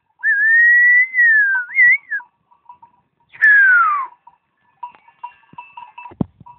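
A shepherd's herding whistle to the sheep. One long, held whistle wavers and ends in a quick up-and-down turn, then a second whistle glides downward. Faint tinkling sounds in the background, and a single knock near the end.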